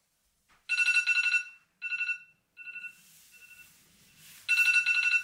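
Electronic ringing tone, a fast trill held on one steady pitch, sounding in bursts: loud about a second in, then several fainter repeats, then loud again near the end.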